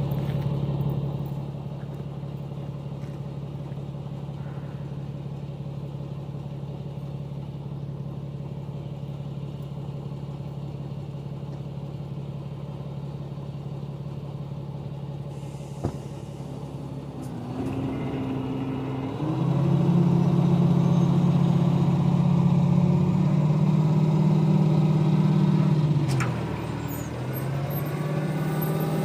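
Freightliner roll-off truck's diesel engine idling steadily, then revving up a little past halfway and holding at the higher speed to drive the hydraulic hoist that tilts the roll-off container up, with a brief dip in revs near the end.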